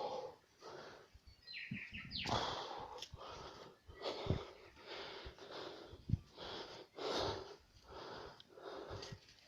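Quick, even rhythmic breathing, a little under two breaths a second, with a brief high chirp about two seconds in.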